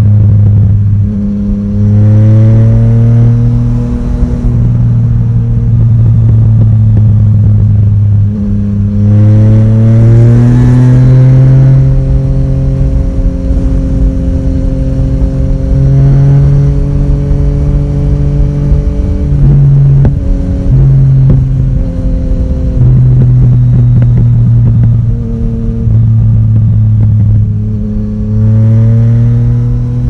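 Yamaha Tracer 900 GT's 847 cc inline-three with Woolich retune and Akrapovic exhaust, running under way; the revs climb three times as it accelerates and settle back to a steady cruise between.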